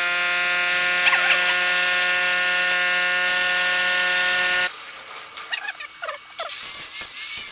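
Grovers Cut40 plasma cutter's arc cutting metal: a loud steady buzzing hiss with a whine, which stops abruptly a little under five seconds in. The freshly repaired torch is firing reliably.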